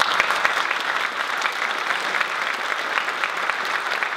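A large audience applauding in a big hall, many hands clapping at a steady level.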